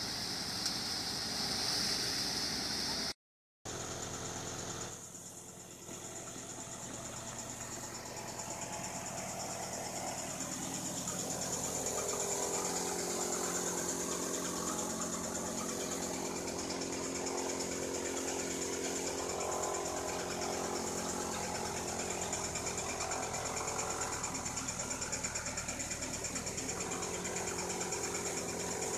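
Engine-driven farm machinery running steadily, a constant drone with several held tones. The sound drops out completely for a moment about three seconds in, then resumes.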